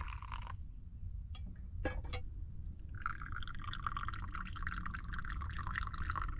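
Hot water poured from a camp pot into a paper pour-over coffee filter, stopping just after the start; a few sharp clicks follow. Then brewed coffee runs from the filter into a metal camp mug in a steady trickle.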